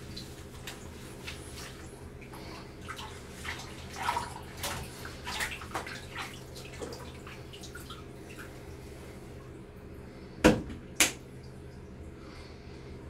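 Bathtub water splashing and swishing as a hand stirs it, in small irregular splashes. Two loud sharp knocks come about half a second apart near the end, over a steady low hum.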